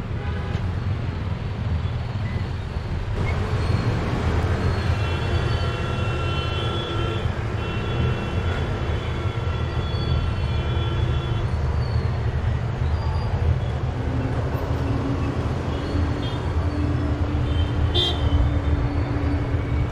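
Road traffic with a steady low rumble of engines and tyres. A vehicle horn sounds in two long blasts, about five to eleven seconds in.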